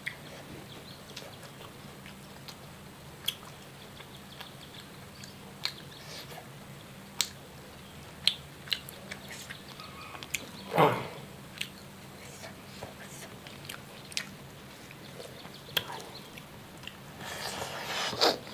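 Eating sounds: scattered small clicks and smacks of chewing and biting over a faint steady hum, with a louder knock about eleven seconds in and a rustle near the end.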